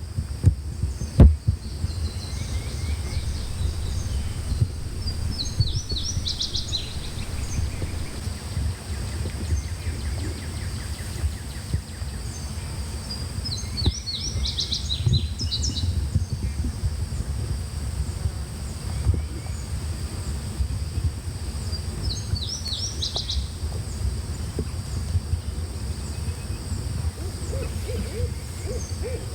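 Woodland ambience: clusters of high, quick chirping notes from a songbird repeat about every eight seconds over a steady low rumble. There is a sharp knock about a second in, and a low series of hoots starts near the end.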